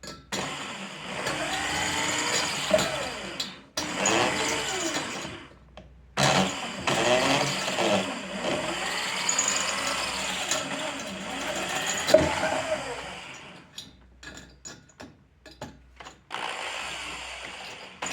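Handheld electric power tool running in several bursts of a few seconds, its motor pitch rising and falling as it bears on the work, with a run of short stop-start blips about three-quarters of the way through.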